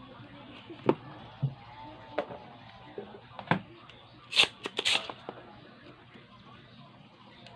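Sharp clicks and knocks of hand tools and parts being handled while working on an amplifier's circuit board, with a brief louder hissing snap about halfway through.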